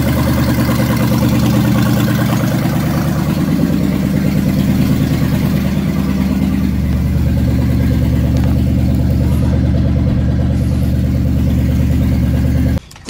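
1986 Ford F-150's carbureted engine running steadily on its first start after being reinstalled. The sound cuts off suddenly near the end.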